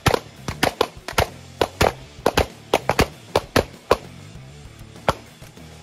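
Pistol gunfire from several shooters on a firing line: about sixteen sharp shots at uneven spacing, some in quick pairs, then a pause and one more shot near the end, over background music.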